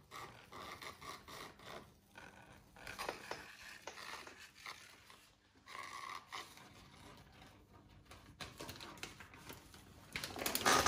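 Empty crisp packet crinkling and scraping across a wooden floor as a cat noses and pushes it, in irregular rustles, the loudest just before the end.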